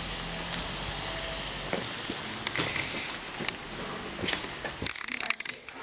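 Footsteps of several people walking on an outdoor path over a steady background, followed about five seconds in by a cluster of sharper clicks and knocks as they pass through a door indoors.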